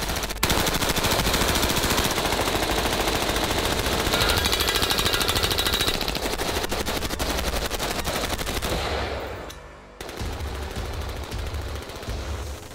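Rapid semi-automatic fire from an AR-15 rifle with a drop-in hard-reset trigger, shots coming close together in a long fast string. The string fades away about nine seconds in, and a second burst of rapid shots starts about a second later.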